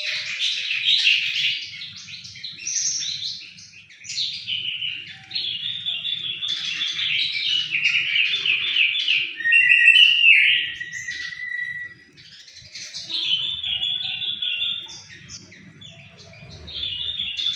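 Songbird singing a long, fast chattering song full of rapid trills, in phrases broken by short lulls about four and twelve seconds in, with a clear falling whistle near the middle.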